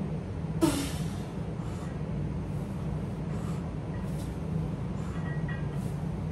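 A steady low drone runs throughout. One short sharp noise sounds about half a second in.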